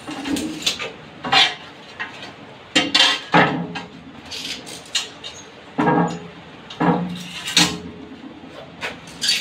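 Hard clinks and knocks of a metal marking square and tools against a large glazed ceramic tile, with some scraping, as the tile is marked out for cutting. About ten sharp strikes spread unevenly, a few ringing briefly.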